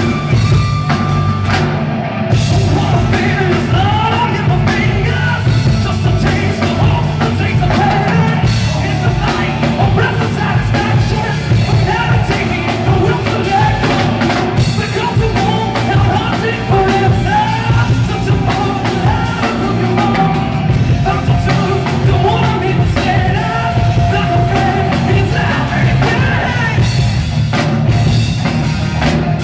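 Rock band playing live at full volume: drum kit, bass guitar, electric guitar and strummed acoustic guitar, with a male voice singing over them.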